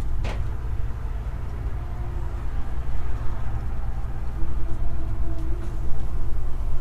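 Trading cards being flipped through by hand, over a steady low rumble. There is one sharp click about a quarter second in.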